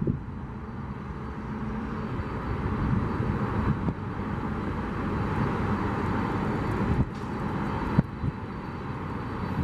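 Boeing 767 freighter's twin jet engines running as it taxis: a steady jet whine over a low rumble, growing a little louder after the first couple of seconds, with a few brief breaks.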